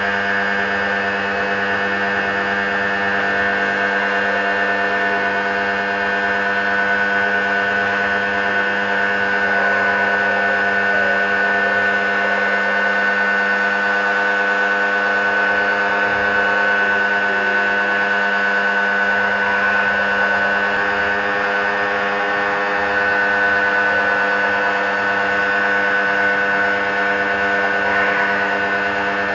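Lotus electric pressure washer running steadily, its motor giving a constant mechanical hum with a high whine.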